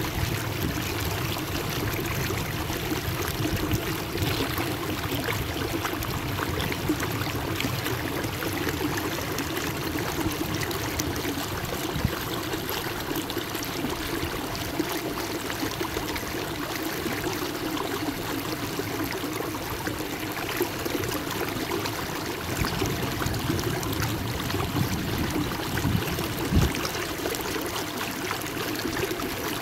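Steady rushing and splashing of water along the hull of a moving kayak, with a low steady hum beneath it. Two soft knocks, one about halfway through and one near the end.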